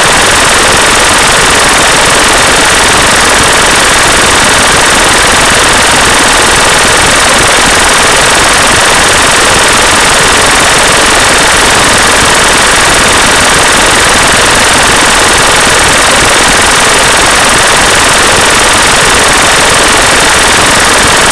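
Loud, unchanging wall of dense noise spread from low to high pitch, with no words or tune to be made out: the masking sound of a subliminal affirmation track.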